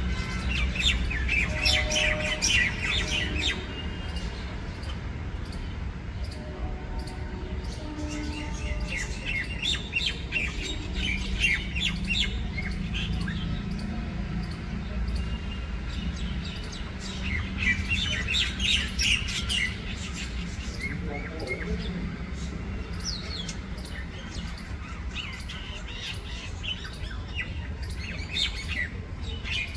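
A bird chirping and squawking in repeated bursts of rapid calls, with short lulls between them.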